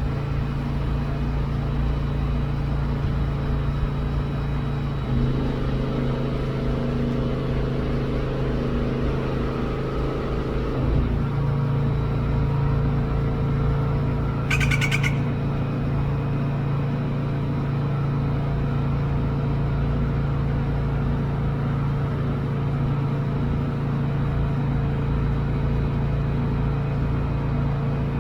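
A vehicle engine running at a steady idle, its hum shifting pitch slightly about five seconds in and again about eleven seconds in. About fifteen seconds in, a crow gives one short, harsh caw.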